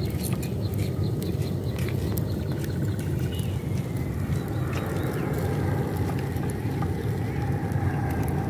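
Steady low outdoor rumble of wind on the microphone, with scattered faint crackles from the wood fire and a short rapid trill about three seconds in.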